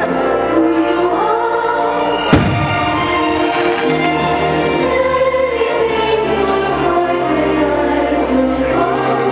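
Fireworks show soundtrack: music with a choir singing sustained, shifting chords. One sharp firework bang cuts through about two seconds in.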